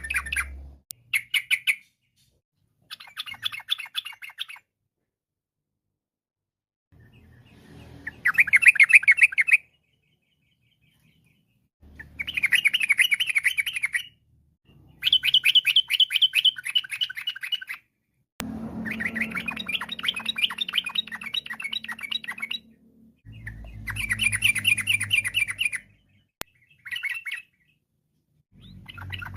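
Yellow-vented bulbul (trucukan) singing in repeated bursts of fast, bubbling chattering phrases, each one to four seconds long, separated by short pauses, with a faint low hum under some phrases.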